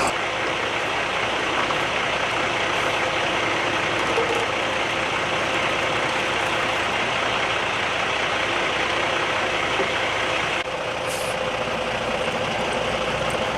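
A motor vehicle's engine running under a steady hiss of noise, changing abruptly about ten and a half seconds in.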